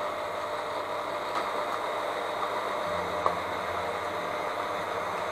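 Electric hand mixer running, its beaters whipping a thick cottage-cheese casserole batter in a bowl, with a steady motor whirr. A brief click sounds about three seconds in.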